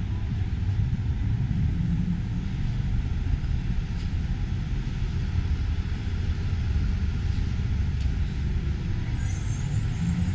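Street traffic: a steady low rumble of vehicles on a city street, with a brief high squeal about nine seconds in.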